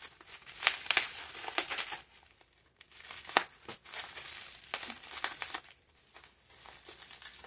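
Plastic bubble wrap crinkling as it is torn open and handled by hand, in several bursts of crackling with short pauses between them.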